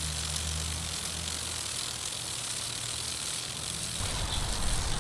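Vintage Paul Zeyssolff Model B lawn sprinkler running: a steady hiss of water spray with the mechanical ticking of its hook-and-ratchet rotation drive.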